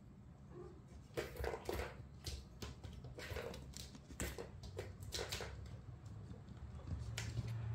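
Irregular clicks and taps from a plastic tower ball-track cat toy as a kitten bats at its balls, mostly between about one and five and a half seconds in.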